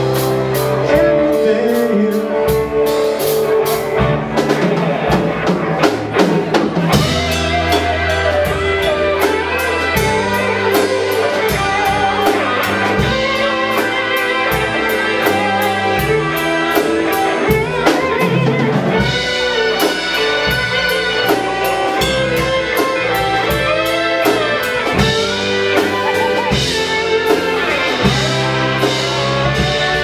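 Live rock band playing an instrumental passage: an electric guitar lead with bent notes over electric bass and a drum kit.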